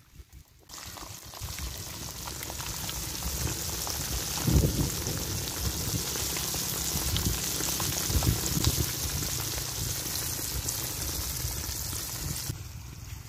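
A whole fish deep-frying in hot oil in a wok, a steady sizzle. It starts suddenly just under a second in and drops away near the end, with a few low thumps along the way.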